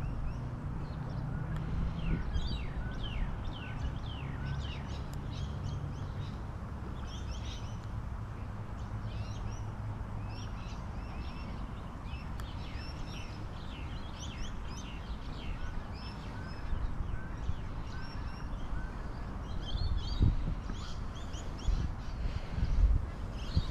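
Birds chattering: many short, falling chirps overlapping almost throughout, over a steady low rumble of wind on the microphone, with a couple of low thumps near the end.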